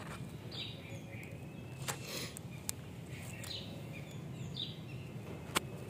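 Cockatiels chirping: short falling calls about once a second, with a few sharp clicks among them.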